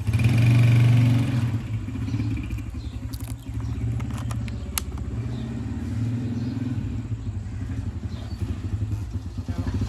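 Motorcycle engine running, louder for about the first second and a half, then settling to a steady, even run.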